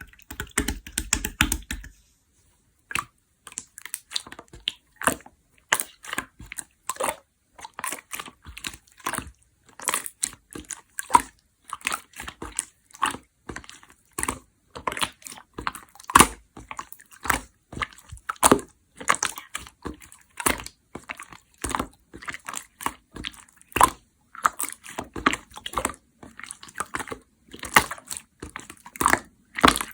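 Clear slime being squished and stretched by hand: an irregular run of sticky clicks and small pops, several a second, with a short pause about two seconds in.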